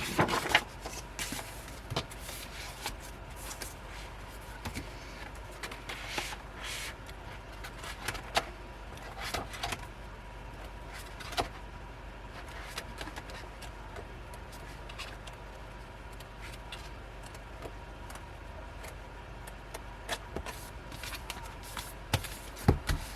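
Paper and card rustling with light taps and clicks as album contents, a large folded poster among them, are handled and unfolded, in short irregular bursts.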